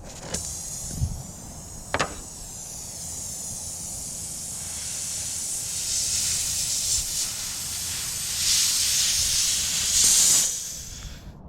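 Air hissing at a car tire during a plug repair, growing louder and stopping abruptly near the end. Two sharp clicks come in the first two seconds.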